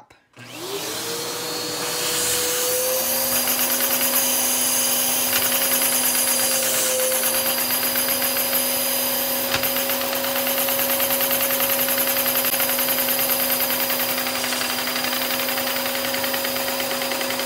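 Vacuum cleaner switched on, its motor whine rising over about a second and then running steadily and loudly, drawing suction through the hose held on a LEGO butterfly vacuum engine. A single click about halfway through.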